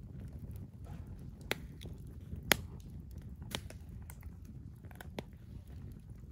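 Wood campfire crackling, with a few sharp pops of burning wood, the loudest about two and a half seconds in, over a low steady rumble.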